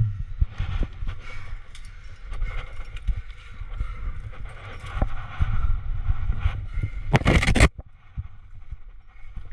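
Scuffs and knocks of taped hands and climbing shoes jamming in a sandstone crack, over an uneven low rumble on the body-worn camera's microphone. A loud rush of noise lasts about half a second, beginning about seven seconds in.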